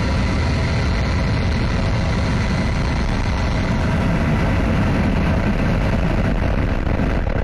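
Delta IV Heavy rocket's three RS-68A engines firing at liftoff, heard close up from the launch pad: a loud, steady roar.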